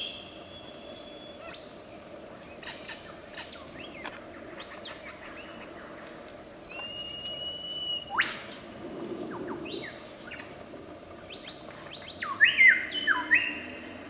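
Superb lyrebird singing a varied string of whistles, chirps and sharp upward sweeps, typical of its mimicked song. The loudest part is a quick run of falling whistled notes near the end.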